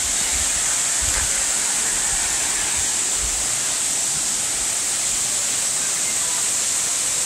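Steady rush of a waterfall's falling water, with a few low thumps about one and three seconds in.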